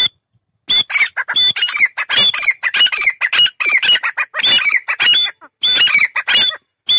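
Caged teetar francolins calling: a rapid, continuous series of loud, shrill, repeated call notes that starts a little under a second in and runs on.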